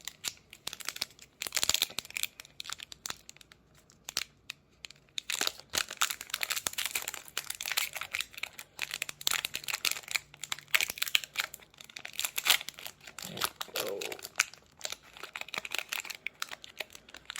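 Foil wrapper of a Pokémon trading card booster pack crinkling and tearing as it is opened by hand, in quick irregular crackles.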